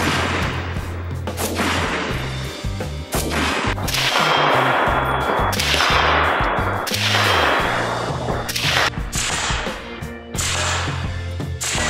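Single rifle shots from a DSA SA58 FAL in .308 (7.62x51), several seconds apart, over background music with a steady, stepping bass line.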